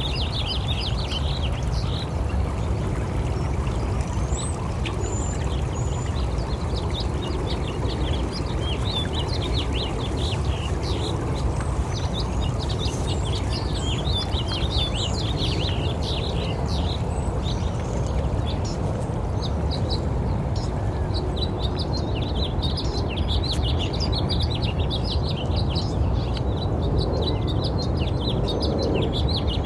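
Many small birds chirping in quick, high, overlapping calls over a steady low rumble.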